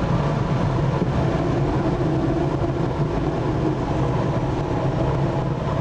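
Steady rush of airflow around the canopy of an ASK 21 glider in flight, with a constant low hum underneath.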